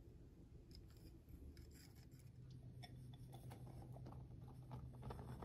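Faint scratching and light clicking of a wire whisk stirring dry flour in a glass bowl, then flour sliding and pattering as the dry mix is tipped into another glass bowl, over a low steady hum.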